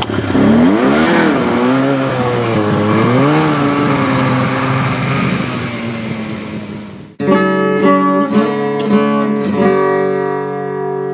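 Vintage Ski-Doo snowmobile's two-stroke engine running, revving up and down a few times and then holding a steady note. About seven seconds in it cuts off suddenly to acoustic guitar music.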